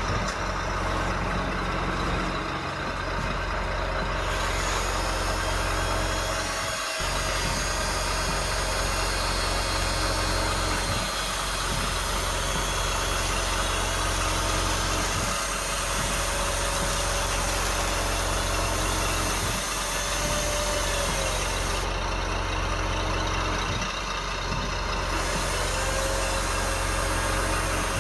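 Scale RC construction machines running, with a steady drone of small electric drive motors and hydraulic pumps. The sound shifts abruptly every few seconds, and the pump pitch briefly glides up and down twice near the end.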